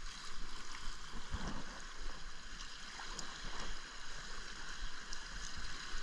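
Small surf waves washing against shoreline rocks, a steady wash of water noise.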